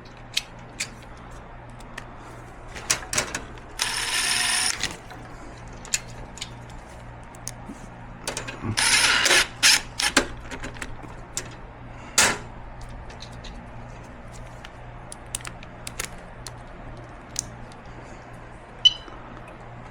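Screwdriver work on a wheelchair seat plate, with scattered metal clicks and clinks and two short bursts of ratcheting, about four and nine seconds in, as screws are set in.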